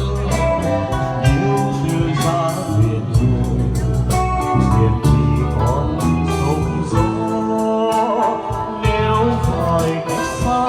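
Music: an instrumental passage of a Vietnamese ballad between sung lines, with sustained bass notes and a steady beat.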